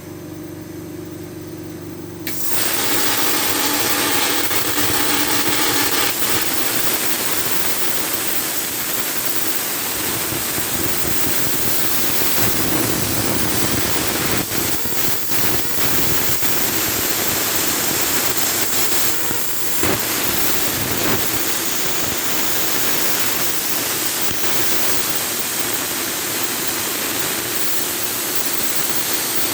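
CNC plasma cutter: a steady machine hum with a few steady tones, then about two seconds in the plasma torch fires and cuts with a loud, steady hiss.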